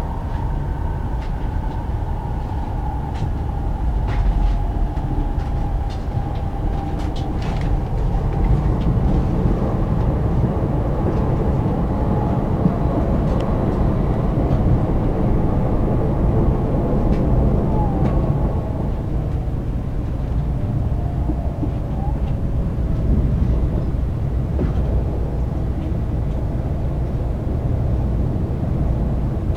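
Cabin running noise of an 800 series Shinkansen train: a steady rumble with a faint motor whine that falls slowly as the train slows for its final stop.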